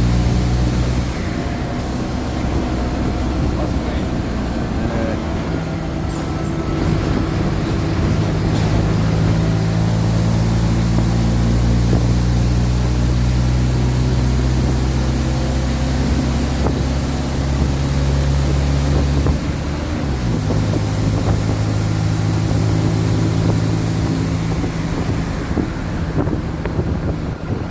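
Mercedes-Benz OF-1722M city bus's diesel engine running under way, a steady drone that drops in pitch about 19 seconds in and then holds steady again.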